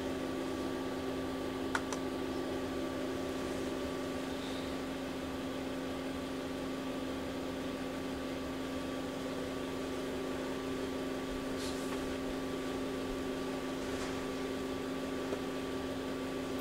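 Steady low machine hum with a few held pitches, and faint clicks about two seconds in and again near the end.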